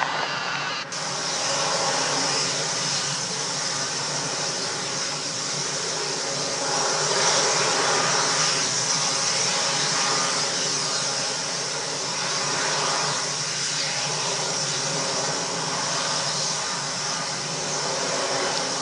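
Gulfstream II's twin Rolls-Royce Spey turbofans running steadily on the runway, a high whine over a rushing noise, swelling a little about seven seconds in.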